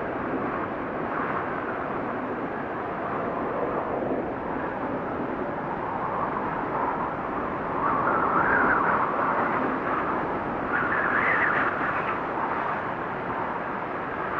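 Blizzard wind blowing in a steady rush, swelling into stronger gusts about 8 and 11 seconds in.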